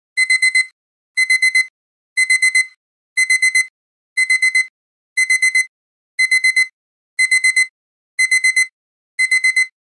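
Digital alarm-clock beeping, high-pitched, in quick bursts of four beeps repeating about once a second, starting abruptly out of silence: the countdown timer's finishing alarm, signalling that the time is up.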